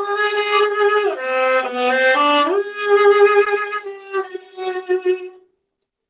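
Solo viola bowing a phrase of held notes that step up and down, then a few short detached strokes, breaking off about five seconds in. It is recorded through a crunchy-sounding microphone.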